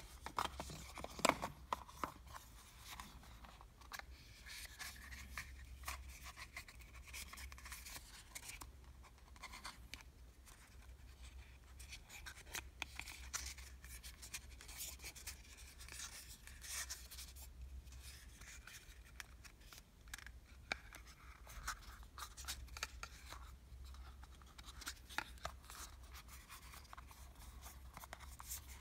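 Paperboard eyelash boxes scraping and rubbing against one another as they are pulled from a tightly packed stack and handled, with many small clicks and taps. A steady low hum runs underneath.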